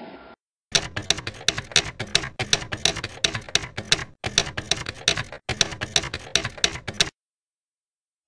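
Typewriter sound effect: a fast run of sharp key clacks, several a second, with two brief breaks. It stops suddenly about a second before the end.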